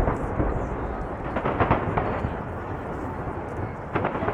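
Aerial fireworks shells bursting in rapid succession: sharp booms and cracks, a tight cluster about a second and a half in and another near the end, over a continuous rumble of overlapping launches and explosions.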